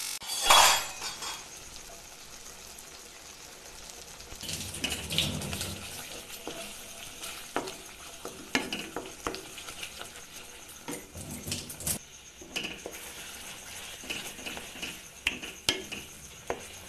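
Spatula stirring and scraping a thick masala paste in a hot frying pan. The paste sizzles, with irregular clicks and scrapes of the spatula against the pan and a loud scrape about half a second in.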